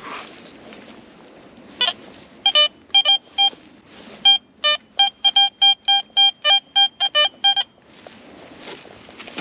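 Metal detector signalling a buried target with a run of short electronic beeps, mostly at one pitch with a few lower ones, about two to three a second for several seconds.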